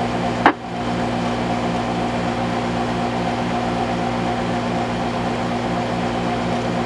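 Steady hum and hiss from a 2-metre ham transceiver's external speaker, a station's carrier held open on the repeater with nobody speaking, with a low hum pulsing a few times a second. A short click comes about half a second in.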